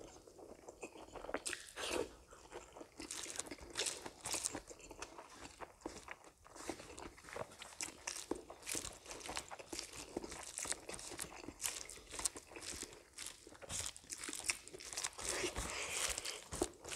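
Close-miked eating by hand: chewing and crunching of mouthfuls in irregular short crackles, along with fingers pressing and mixing rice on a banana leaf.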